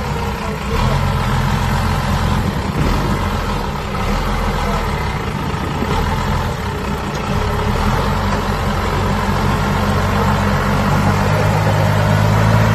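Engine of a lifted square-body pickup running steadily at low revs while it crawls over rock, getting a little louder near the end.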